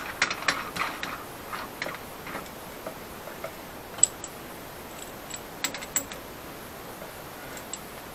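Light metal clicks and rattles of a drill bit being fitted into a drill press chuck and the chuck being turned by hand. A quick run of clicks comes in about the first second, then a few scattered clicks.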